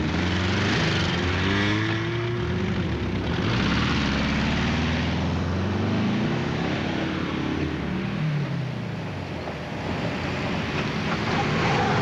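Car engines revving hard as cars speed away, their pitch rising and falling through acceleration and gear changes. The sound drops briefly about nine seconds in.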